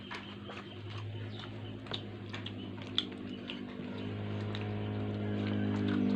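A motor vehicle's engine hums steadily, growing louder as it approaches. Scattered small clicks and taps of tableware come from the meal.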